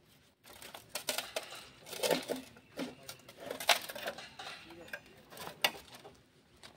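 Metal clinks and knocks as a greasy engine part is turned over and washed in a metal pan of oil. The taps are scattered and uneven, with the sharpest a little past the middle and another near the end.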